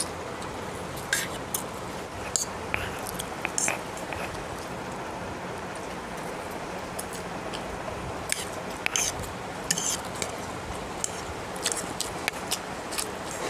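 A metal fork clicking and scraping on a plate while chowmein noodles are eaten, with chewing and lip smacks: scattered sharp clicks, some in quick clusters, over a steady hiss.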